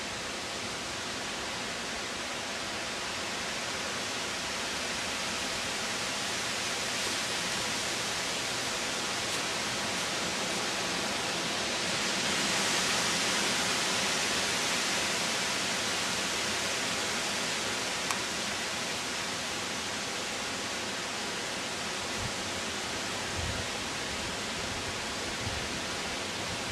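Snowstorm outdoors: a steady hiss of wind and blowing snow that swells gently about halfway through.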